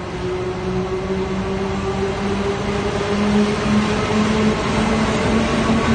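A Taiwan Railways E200-series electric locomotive draws near along an underground platform. Its running hum holds a few steady tones that rise slowly in pitch and grow louder as it comes close.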